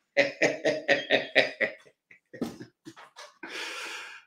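A man laughing: a quick, even run of about eight short voiced 'ha' bursts over the first two seconds, then a few softer ones, and a breathy exhale near the end.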